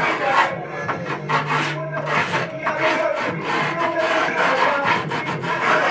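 Grip tape on a skateboard deck being scraped along the deck's edge with a hand tool: a quick, irregular run of rasping strokes, the usual way of scoring grip tape before it is trimmed.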